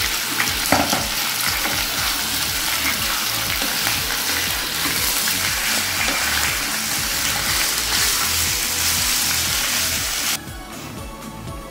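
Raw chicken pieces sizzling in hot oil in a nonstick kadhai, stirred with a spatula, fried briefly until they change colour. The sizzle cuts off suddenly about ten seconds in, leaving quieter background music.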